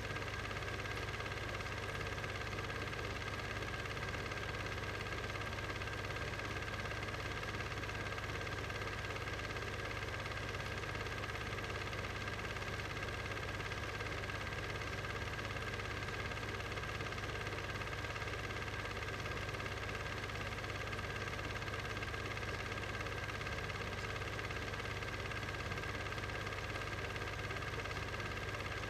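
Steady mechanical hum and whir that does not change, with a low hum and a few steady higher tones.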